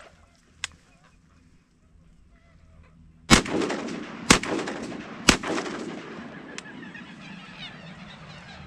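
Three shotgun shots about a second apart, with a wash of noise lingering and fading after the last one.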